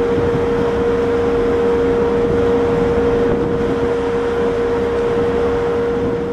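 Cruise ship's machinery running on deck: a steady hum with one held note over a constant rush of noise.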